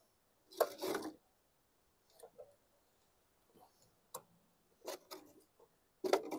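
A metal hand tool clicking and scraping against a small mower engine's carburetor, working a rubber gasket loose. The sounds are scattered and brief: a longer scrape about half a second in, a few light clicks, and another scrape near the end.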